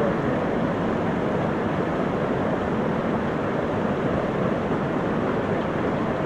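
Steady rushing of a small waterfall pouring into a deep river pool, an even, unbroken roar of water.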